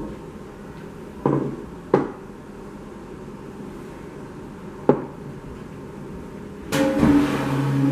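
Three sharp knocks, then near the end a metal chair dragged across the floor: a grating scrape of about a second with a squealing ring in it.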